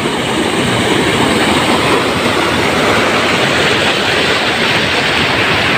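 Canal water rushing and churning as it pours through the outlets of a canal fall (jhal), a loud, steady rush of turbulent water.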